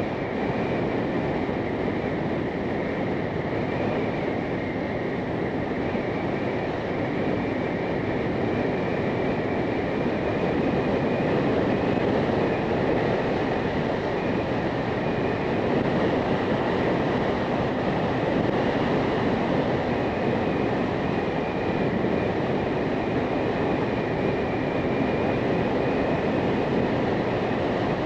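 Motorcycle under way on the road: steady wind rush and road noise with the engine running beneath it, and a faint steady high whine.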